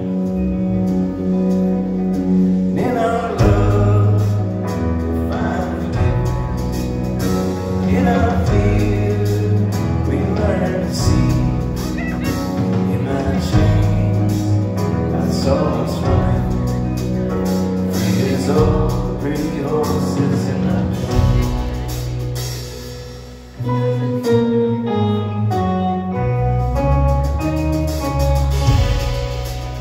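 Live rock band playing a song through a hall PA: electric guitars, drum kit and keyboard. The music drops away briefly about three-quarters of the way through, then the full band comes straight back in.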